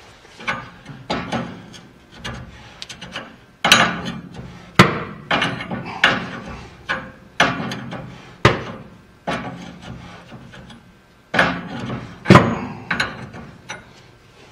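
Hammer striking steel at the threaded bushing of a 1948 Chevrolet's upper control arm, which has likely been seized since the factory. About twenty sharp metallic blows with a short ring, uneven in spacing and force.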